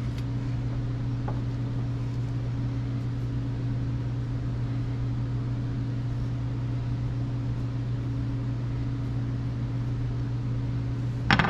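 A steady low machine hum with a faint even hiss beneath it, unchanging throughout.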